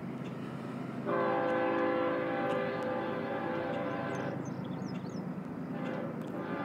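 Horn of an approaching diesel freight locomotive, a BNSF ES44C4 leading a stack train: one long chord blast of about three seconds, then a second long blast starting near the end, over a low rumble.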